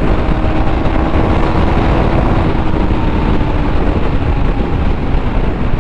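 Motorcycle riding at speed, with a steady engine note under heavy wind rush on the microphone.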